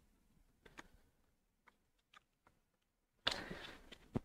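Faint clicks and taps of a plastic Wi-Fi router and its cable being handled. A brief rustle comes about three seconds in, followed by a sharp click near the end.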